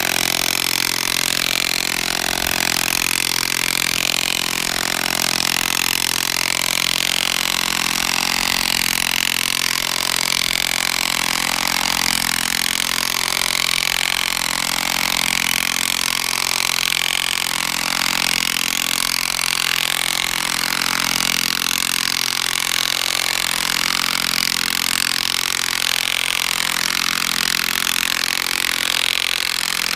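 Ryobi cordless impact wrench hammering steadily without a break, screwing a double-disc, 30-inch mobile home ground anchor down into gravel through an adapter.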